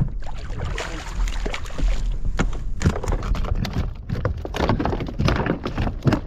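Water splashing and sloshing around a kayak, with irregular sharp splashes and knocks.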